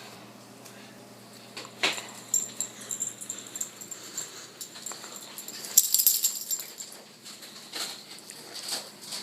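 A dog whining in thin high tones among scattered knocks and clatter, the loudest burst about six seconds in.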